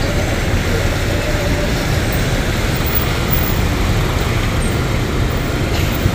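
Steady road traffic noise on a rain-wet street, with a low engine rumble.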